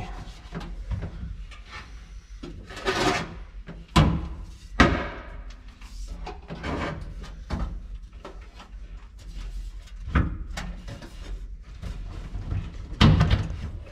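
Hand-work on the car's sheet-metal floor: scattered knocks, clunks and scrapes as a screwdriver and hands lever a gasket and panel into place against the crossmember. The loudest are two sharp knocks about four and five seconds in, and another near the end.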